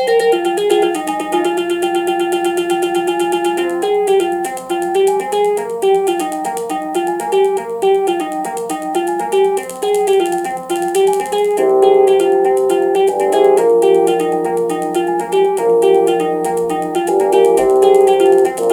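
FM-synthesised music from a Commodore 64 SFX Sound Expander playing an 80s pop medley from MIDI: a plucked, guitar-like melody over held chords. The arrangement gets fuller about twelve seconds in.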